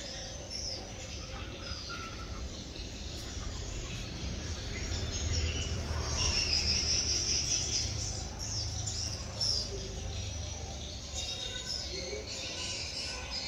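Small birds chirping and calling in the trees: many short, high chirps scattered throughout, over a low rumble that swells in the middle seconds.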